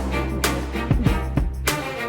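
Background music with a funky steady beat and bass line.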